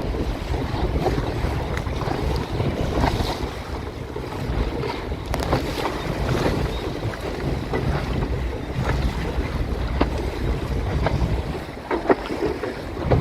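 Strong wind buffeting the microphone aboard a small Snark sailboat, with water splashing and slapping against the hull now and then.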